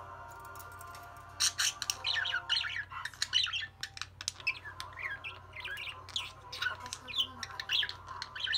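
Budgerigar warbling: a fast, unbroken run of chirps, squawks and chatter that starts about a second and a half in.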